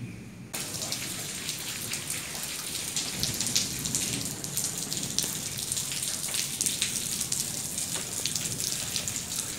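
Rain falling steadily, with many individual drops pattering close by. It starts abruptly about half a second in.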